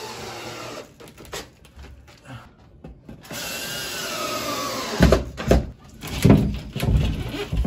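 Cordless drill driving screws up into a ceiling, its motor whirring in short runs. From about five seconds in, several heavy, uneven thumps.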